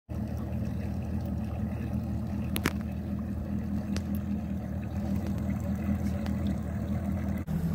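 Bass boat outboard motor idling with a steady low hum, with a sharp click about two and a half seconds in.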